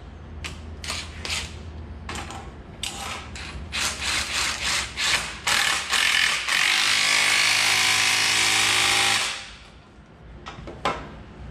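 A cordless power tool runs steadily for about three seconds, driving the new 17 mm nut down onto a leaf spring's center bolt, then stops abruptly. Before it comes a series of short metallic clicks and clacks as the nut is started and the tool is set on it.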